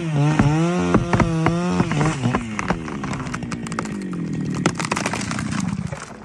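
A two-stroke chainsaw running at high revs, its pitch dipping briefly several times as the chain bites into the wood. It then sags slowly lower over several seconds under load, with many sharp cracks and clicks, and cuts off just before the end.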